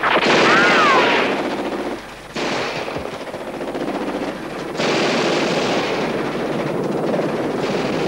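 Rapid machine-gun fire in long, sustained bursts, with a short break about two seconds in. A brief warbling tone rises and falls twice near the start.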